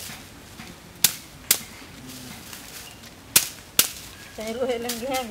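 Four sharp cracks in two pairs, each pair about half a second apart, then a short call with a wavering pitch near the end.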